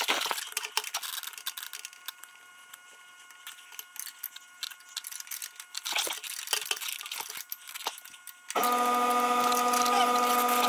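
Small metallic clicks and taps as bolts are started by hand. About eight and a half seconds in, a cordless power tool's motor starts a steady, even whine, running a bolt in.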